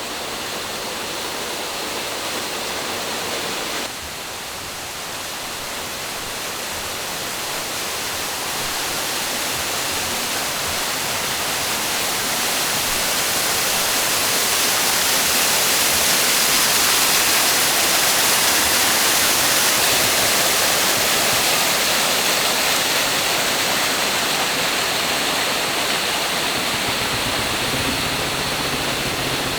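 Small waterfall pouring into a river: a steady rushing and splashing of water that swells gradually louder toward the middle and eases slightly near the end.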